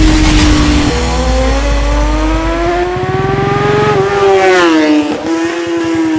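BMW S1000R's inline-four engine at high revs, its note climbing steadily as it accelerates, with a step down in pitch about a second in and another quick dip and recovery near five seconds, over low wind and road rumble.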